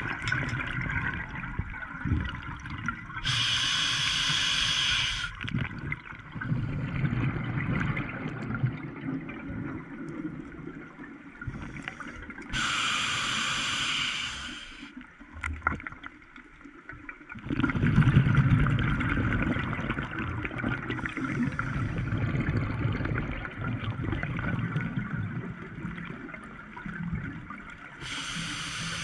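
Scuba diver breathing underwater through a regulator: three long hissing inhalations of about two seconds each, with bubbling, gurgling exhalations in between.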